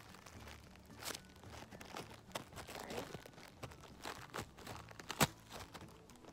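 Clear plastic packaging crinkling and crackling as a squishy toy is handled and worked out of its bag, with irregular sharp snaps, the loudest a little past five seconds in.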